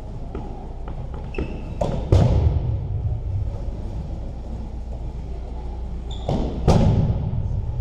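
Two dodgeballs striking hard, about two seconds in and again near the end, each with a long echo off the walls of a large gym, with smaller knocks and ball bounces between and a steady low hum of the hall underneath.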